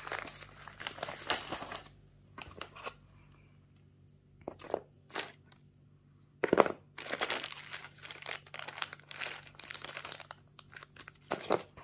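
Clear plastic bags of small metal and plastic construction-kit parts crinkling as they are picked up and handled. There is a quieter stretch in the middle with a couple of sharp clicks, then dense crinkling again from a little past halfway.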